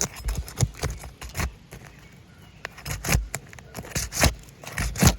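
Old, brittle asphalt roof shingles being pried loose by hand and tool: irregular scrapes, crackles and light knocks as the sealed shingle is forced up and tears.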